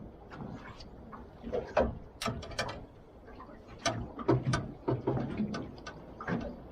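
Irregular clicks, knocks and rattles of fishing tackle being handled on a small boat as a squid is landed.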